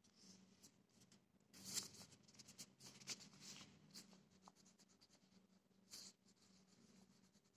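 Fingertips rubbing and pressing on the back of a sheet of paper, hand-burnishing it to take up a print: faint, scratchy paper rustles, with a louder rustle about two seconds in.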